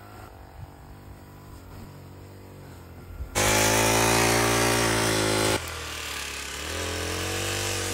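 Backpack brush cutter's small engine running steadily at speed: faint at first, loud for about two seconds from roughly three and a half seconds in, then quieter again.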